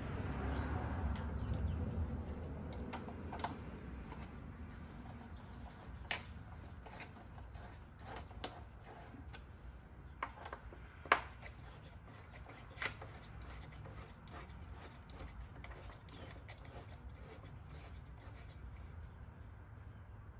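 Scattered light clicks and taps of hands and a small hand tool working on the plastic intake cover panels of a Kawasaki Z H2 motorcycle, with a sharper click about eleven seconds in. A low rumble of the panels being handled comes in the first couple of seconds.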